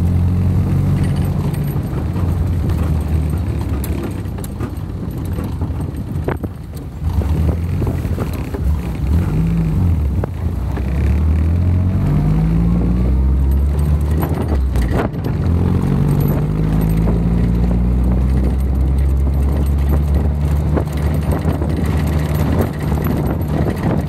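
A Second World War jeep's four-cylinder engine running under way, heard from on board. It pulls steadily, then rises and drops in pitch several times as it accelerates through the gears. A sharp click comes twice, about six and fifteen seconds in.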